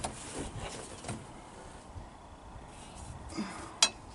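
Scattered light metallic clinks and knocks as a steel bar is fitted against the steering wheel to stop it turning, with one sharper clink near the end.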